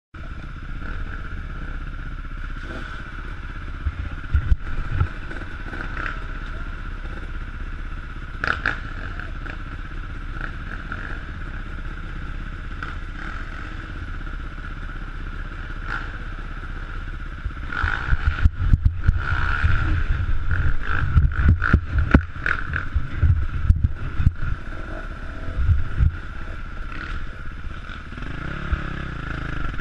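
Enduro dirt bike engine running at low speed, heard from on board, with clattering knocks from the bike over rough ground that get busier and louder from about 18 seconds in. Near the end the engine revs up, its pitch rising.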